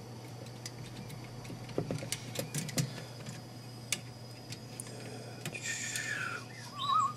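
Light clicks and taps of small plastic and metal parts as a part is fitted by hand into a VCR tape mechanism, clustered about two to three seconds in. Near the end comes a short wavering squeak, the loudest sound, over a steady low hum.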